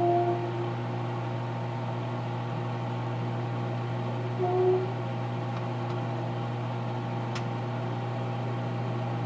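Microwave oven heating popcorn, running with a steady low hum and making a strange short hooting tone at the start and again about four and a half seconds in, each lasting about half a second; one faint click near the end.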